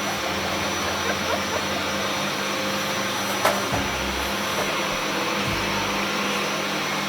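Vacuum cleaner running steadily with a constant high whine over its motor noise, and one sharp click about three and a half seconds in.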